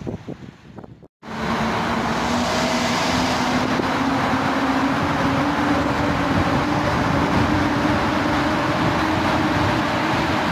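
EP08 electric locomotive hauling passenger coaches slowly into the station, a steady loud rumble with a drawn-out hum that creeps slightly up in pitch. It is preceded by about a second of wind buffeting the microphone, which cuts off abruptly.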